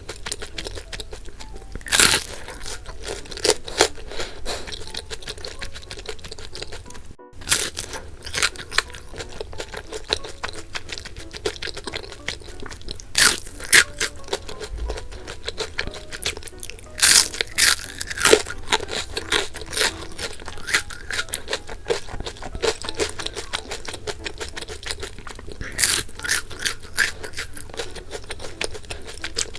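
Close-miked crunching and chewing of bungeoppang, crisp fish-shaped pastries filled with red bean or custard cream, in irregular bites, over light background music.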